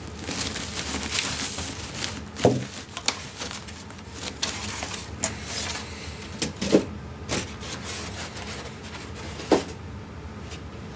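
Packing being handled as an AV receiver is lifted out of its box: rustling of packaging, with a few dull knocks and thumps as the unit is moved and set down.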